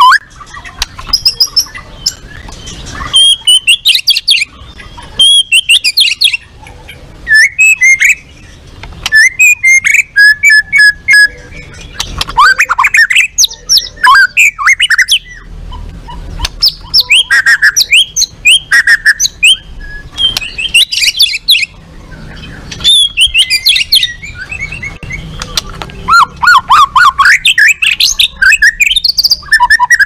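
White-rumped shama singing a loud, varied song of quick whistles, rising and falling notes and fast chattering trills, delivered in rapid phrases with short pauses between them.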